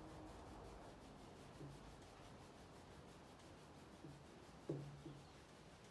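Faint rubbing of thumbs over leggings fabric on the kneecap during a self-massage, with a few brief soft low sounds, the clearest near the end.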